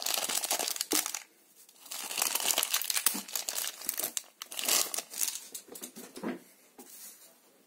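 Thin clear plastic packaging bag crinkling as it is handled, in quick crackly bursts. There is a short pause a little over a second in, and the sound dies away near the end.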